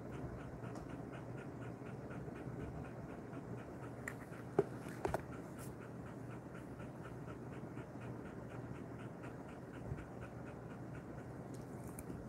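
Jindo-mix dog panting quickly and evenly, about four to five breaths a second, cooling down after a walk. Two sharp clicks come about halfway through.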